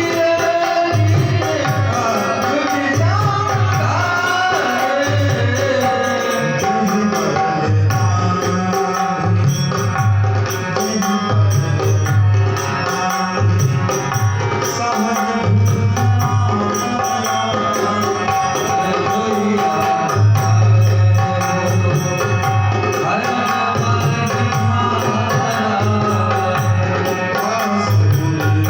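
Dholak drumming a lively rhythm, its deep bass strokes repeating, under a sung devotional melody.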